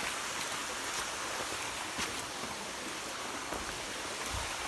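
Steady rush of flowing water from a small waterfall and its creek.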